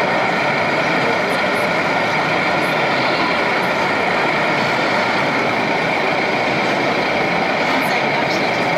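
Steady din of a crowded exhibition hall: many voices talking at once under a constant running noise, with no single event standing out.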